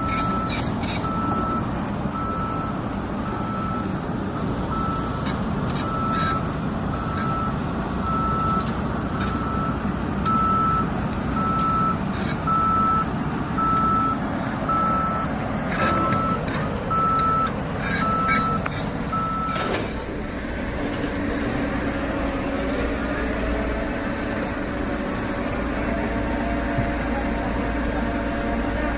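Heavy machine's travel alarm beeping at a steady single pitch, about once a second, over the steady rumble of its diesel engine. The beeping stops about 20 seconds in and the engine runs on.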